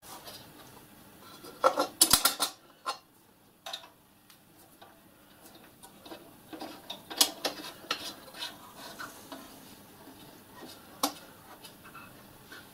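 Small metallic clinks, taps and scrapes as knurled brass clamp nuts are fitted and screwed by hand onto the firebox lugs of a miniature live-steam locomotive, with a cluster of sharper clinks about two seconds in.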